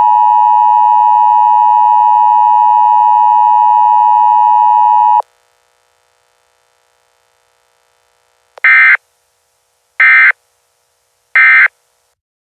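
Emergency Alert System attention signal, a steady two-tone tone, cuts off sharply about five seconds in. After a few seconds of silence come three short, evenly spaced digital data bursts: the EAS end-of-message code that closes the mock tornado warning.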